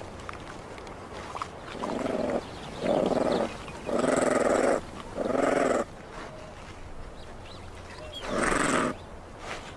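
Honey badgers giving five short, harsh, pitched growling calls while tussling over food, the middle one the longest and loudest; the last comes after a pause of a couple of seconds, near the end.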